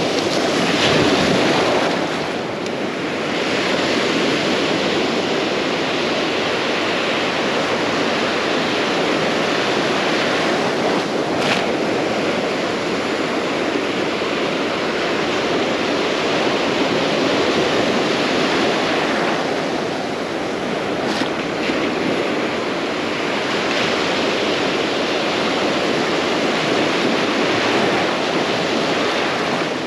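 Ocean surf on a beach: a continuous rush of breaking and washing waves that swells and eases every few seconds, with some wind on the microphone.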